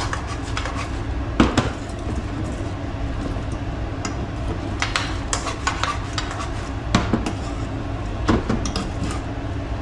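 Cooking utensils clicking, knocking and scraping against a non-stick frying pan as fried jewfish (mulloway) pieces are turned and coated in a thick caramelised honey sauce. The clicks are irregular, with a few louder knocks, over a steady low hum.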